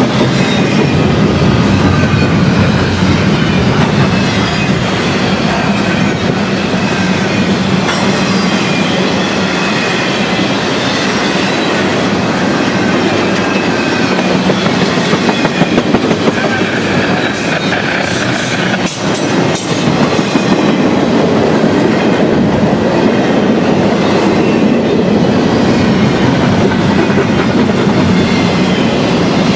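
Double-stack container freight train passing at close range: a loud, steady rumble of steel wheels rolling over the rails as the well cars go by.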